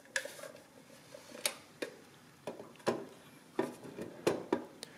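Handling noise from a metal Addac adding machine being turned over and held upright: a scattered series of sharp clicks and light knocks from its casing and legs.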